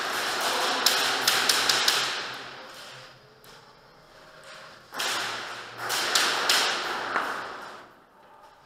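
Airsoft gunfire and BB hits in an indoor hall: irregular sharp snaps and knocks in two spells, the first about a second in and the second about five seconds in, over a rushing, rustling noise.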